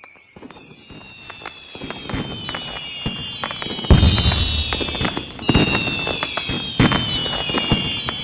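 Fireworks going off: a rapid crackle of pops that builds from quiet, with deep booms about four, five and a half and seven seconds in. High whistling tones slide slowly down in pitch over the crackle.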